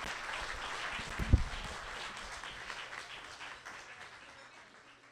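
A small audience applauding, the clapping thinning out and fading away toward the end. A single low thump cuts through about a second and a half in.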